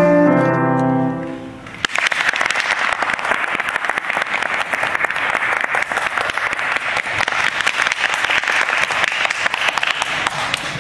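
Steinway grand piano playing its last few notes and a held closing chord that rings out for under two seconds. An audience then applauds steadily for the rest, tailing off slightly near the end.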